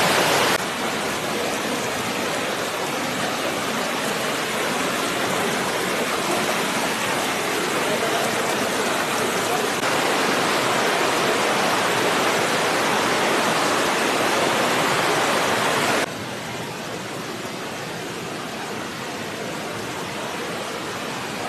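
Steady rush of water surging up from an underground spring into a karst sinkhole. It drops suddenly in level about half a second in and again near the end.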